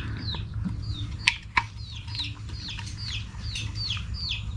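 A bird calling over and over, a short falling note repeated about three times a second, over a steady low hum. Two sharp knocks or clicks come about a second and a half in, the first the loudest sound here.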